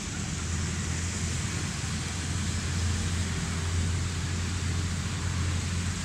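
Diesel-hauled express train approaching from a distance: a steady low rumble under an even rushing noise, growing slowly louder.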